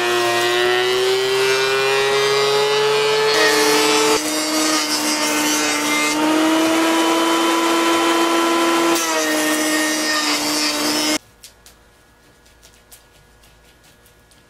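Benchtop thickness planer and jointer motors running while they plane eastern red cedar boards, with a steady whine that shifts in pitch as the load changes. The sound cuts off abruptly near the end, leaving a few light taps.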